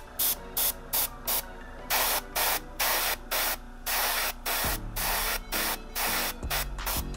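Airbrush spraying in short hissing puffs, about two a second, some held a little longer, as weathering is sprayed onto a plastic scale model.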